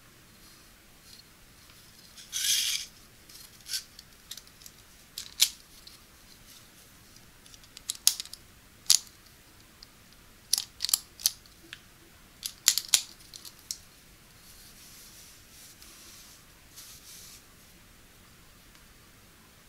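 Sharp metallic clicks and snaps from velvet skirt hangers' spring-loaded metal clips and wire hooks being handled, one at a time with a few quick runs of two or three. Near the end comes a few seconds of soft rubbing.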